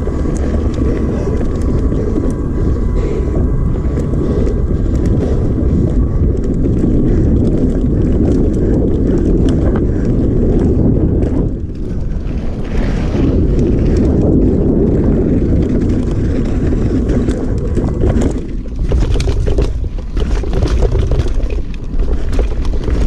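Wind buffeting a helmet- or bike-mounted action camera's microphone over the tyre rumble of a mountain bike riding a trail. In the last few seconds many short clicks and knocks come through as the bike rattles over rough ground.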